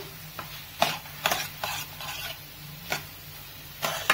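Spatula stirring and scraping through a mushroom, onion and capsicum stir-fry in a non-stick kadai, about six short strokes at uneven intervals, as cornflour slurry is mixed in. A faint sizzle of frying runs beneath the strokes.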